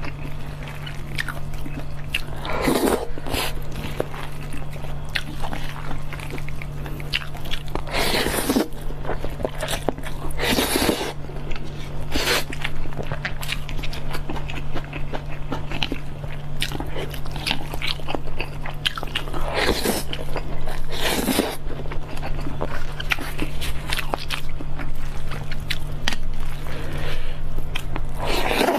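Close-miked chewing and biting of cheung fun, soft wet mouth clicks, broken every few seconds by a short, louder noisy burst. A steady low hum runs underneath.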